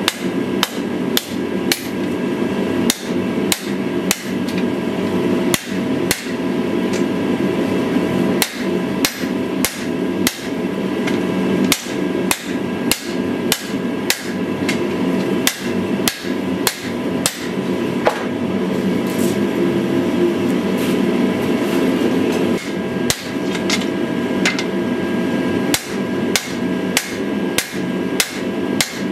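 Hand-hammer blows on a knife blade being forged on the anvil, about two a second with short irregular pauses, each blow leaving a ringing tone. A steady rushing noise runs underneath.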